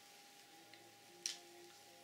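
Near silence: quiet room tone with a faint steady hum and a single short click a little over a second in.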